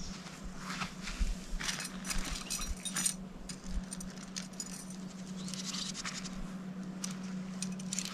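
Tent fabric rustling and light metal clinking of tent poles or pegs as the tent is handled, in short irregular bursts, with a steady low hum underneath.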